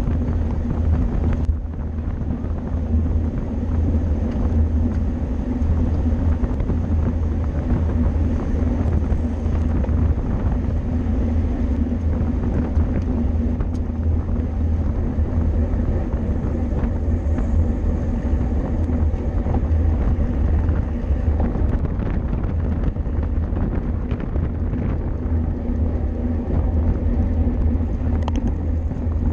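Steady wind rumble and tyre-on-road noise from a bicycle ridden at race speed, heard on a camera mounted on the bike, with a few faint clicks.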